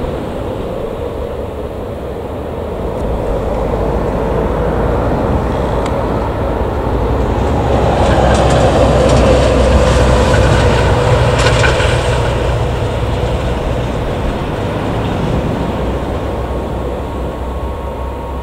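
Embraer E190's two GE CF34-10E turbofan engines running at taxi power, a steady jet whine over a low rumble. It grows louder and brighter around the middle as the jet turns, then eases off.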